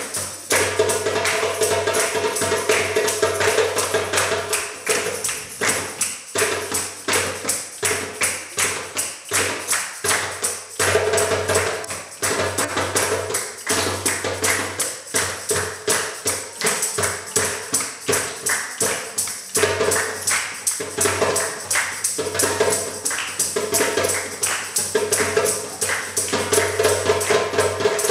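Jingle tambourine shaken and struck in a steady, fast rhythm over a hand drum played with bare hands.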